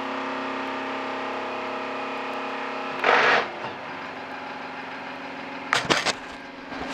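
Warco lathe running steadily, driving a Lucas motorcycle dynamo. About three seconds in there is a short loud rush of noise, after which the running sound is quieter, and a few sharp clunks follow near the end as the headstock speed levers are moved to bring the lathe down to 1250 RPM.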